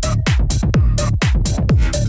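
Bass house dance music played in a DJ set: a steady, driving beat of deep kick drums that drop in pitch, with crisp hi-hat hits between them.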